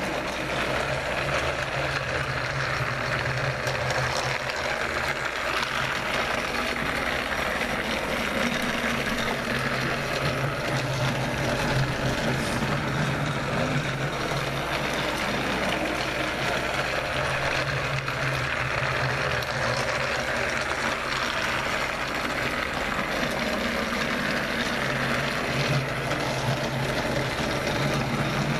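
Battery-powered Trackmaster Royal Spencer toy train's small electric motor and gears whirring steadily as it runs along a wooden track.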